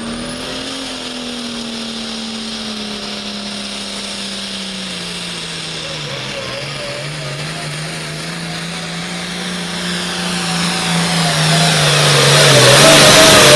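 Hot-farm-class 466-cubic-inch diesel pulling tractor running at full throttle under the load of a pulling sled, its engine pitch held high and then slowly sagging as the load builds. It grows much louder near the end as it passes close by.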